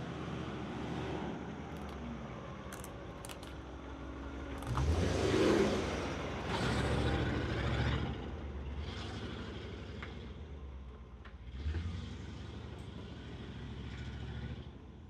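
Land Rover 4x4 engine running as it drives, revving up in surges about five and seven seconds in and once more near the end.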